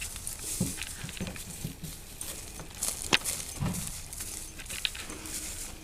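Goats jostling and feeding at close range, with scattered sharp clicks and knocks. A faint steady hum comes in about four seconds in.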